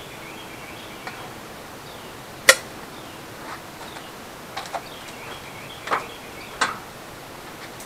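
A few sharp clicks and knocks as a coiled rubber air hose and its metal fittings are handled, the sharpest about two and a half seconds in, with scattered lighter knocks later.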